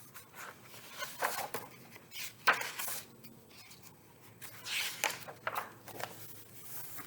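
Paper rustling as the pages of a picture book are handled and turned, in several short scuffs with a sharp tap about two and a half seconds in.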